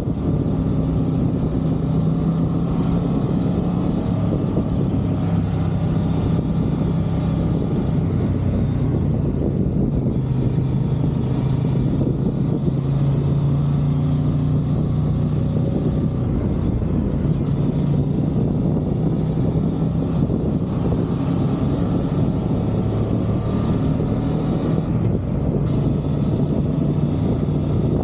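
Honda CB500X's parallel-twin engine running at a steady road speed, its pitch drifting up and down a little, under a rush of wind.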